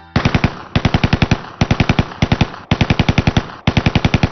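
Automatic gunfire in five rapid bursts, about ten shots a second, with short breaks between bursts.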